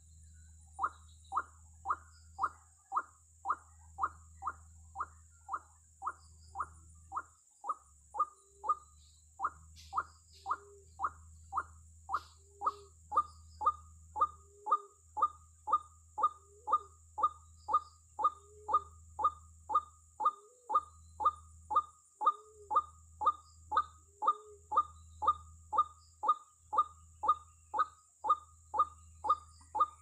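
White-breasted waterhen calling: a short, downward-sliding note repeated steadily about twice a second, with softer lower notes slipped in between for part of the time.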